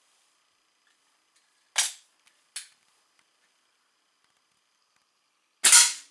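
Slavia 630 .177 break-barrel spring-piston air rifle being fired once near the end: a single sharp crack, the loudest sound here. It follows two short clicks of the rifle being handled about two seconds in.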